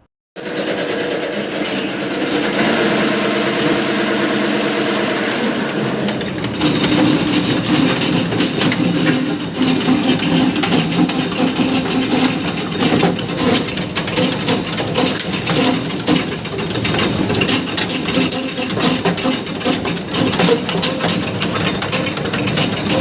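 Areca nut splitting machine running with a steady motor hum; about six seconds in, a dense irregular clatter joins it as dried whole areca nuts go through it.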